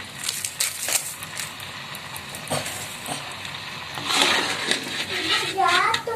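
Plastic sachet of powdered chicken stock being handled and torn open, crinkling, with scattered sharp clicks and a longer rustling stretch about four seconds in.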